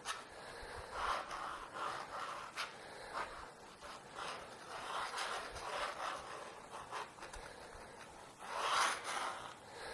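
Steel dip pen nib scratching across drawing paper as it draws ink lines: a run of short, uneven scraping strokes, the loudest near the end.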